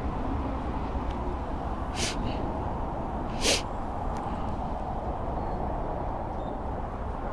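Steady low background rumble, with two short breathy hisses about a second and a half apart, the second louder.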